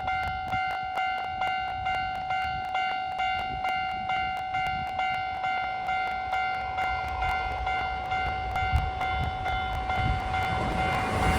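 Level crossing warning bell ringing in an even rhythm of about two dings a second. The rushing noise of an approaching train builds near the end.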